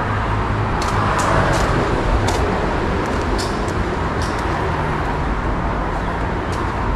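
Steady road-traffic noise with a low rumble, swelling slightly about a second in, and a few light clicks over it.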